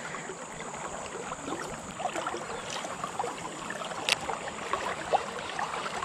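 River water flowing past a wading angler, a steady rush of noise with many small splashes and ticks; a single sharp click about four seconds in.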